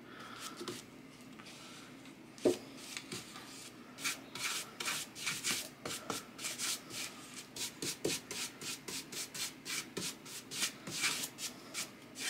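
Bristle paintbrush stroking milk paint onto a wooden box, in short back-and-forth brush strokes that become steady at about three or four a second from about four seconds in. A single knock sounds about two and a half seconds in.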